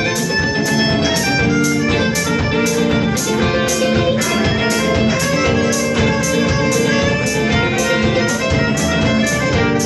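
A live band playing a funky folk instrumental: electric guitar and fiddle over drums, with cymbal strokes keeping a steady beat.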